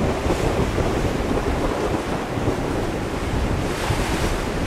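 Rough sea surf washing and breaking against the rocks, with wind buffeting the microphone in a steady low rumble.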